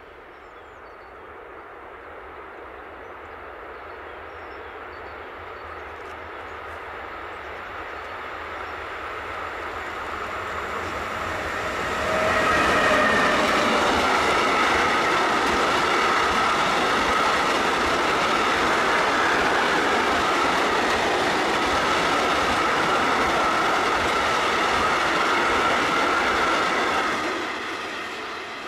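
A freight train approaching and passing close by: its rumble builds gradually for about twelve seconds, then turns suddenly loud as it goes past, with a steady high tone over the rolling of the wagons, and falls away near the end.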